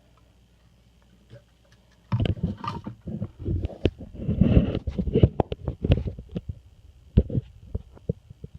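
Plastic Lego pieces handled close to the microphone: after about two seconds of quiet, a loud, irregular run of clicks, clatter and rustling as a piece is fitted onto the build, thinning out near the end.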